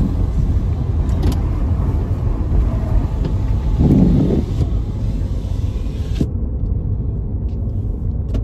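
Car driving, heard from inside the cabin: a steady low road and engine rumble, with a brief louder swell about four seconds in.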